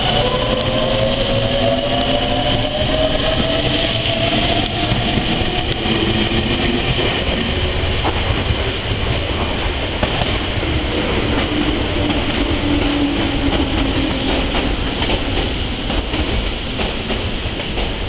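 Meitetsu 3700 series VVVF electric train pulling out and accelerating, its inverter-driven traction motors whining in several tones that rise in pitch, with wheels running on the rails. The whine fades as the train draws away, leaving a steady rushing noise.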